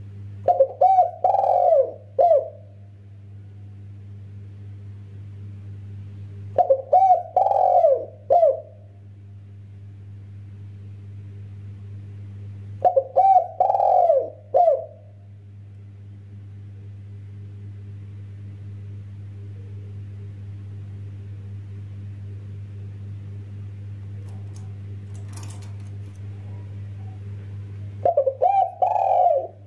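Spotted dove cooing: four phrases of several coos each, the last coo set slightly apart, repeated about every six seconds with a longer pause before the last phrase. A steady low hum runs underneath.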